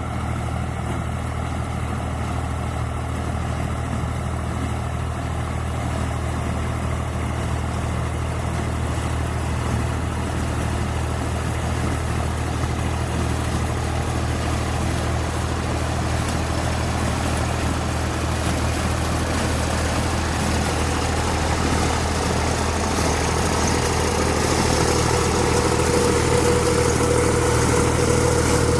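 Farm tractor's diesel engine running steadily, slowly growing louder as it comes closer. About three-quarters of the way through, a steady machine whine joins it.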